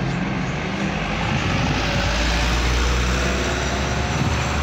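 Road traffic passing close by: a small box truck and cars driving through an intersection, engines and tyres with a low rumble that swells in the middle.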